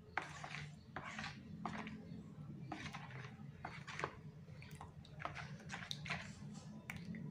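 Hand stirring thin rice-flour batter in a bowl: irregular wet squelches and slaps, one or two a second, over a low steady hum.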